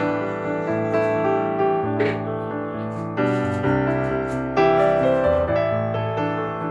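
Background music: a slow keyboard melody over held chords, with a new note or chord about every second.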